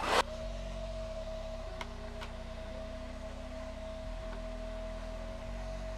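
A hair dryer running steadily, heard as a faint even whine under soft background music with slow-changing low chords.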